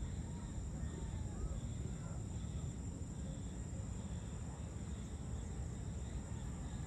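Evening outdoor ambience: insects trilling steadily in a high pitch over a continuous low rumble, with a few faint bird chirps.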